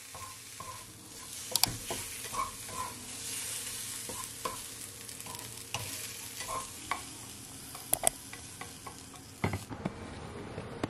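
Sliced mushrooms sizzling in a frying pan while a slotted spatula stirs and scrapes them, with a few sharp clacks of the spatula against the pan. The sizzle cuts off near the end.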